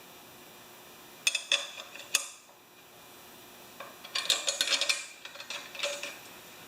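Metal tools and parts being handled on a workbench: a few sharp clinks, then a quick run of rattling clinks near the middle.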